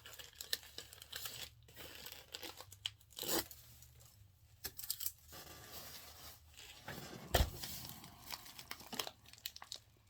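Crinkling, rustling and tearing of a plastic bubble mailer and its packing as it is handled and sealed, in irregular spurts, with a sharper knock about seven seconds in.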